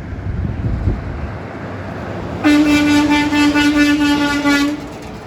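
A big truck's horn sounding one long, steady single-note blast of a little over two seconds, starting about two and a half seconds in. A low engine and traffic rumble sits under the first second.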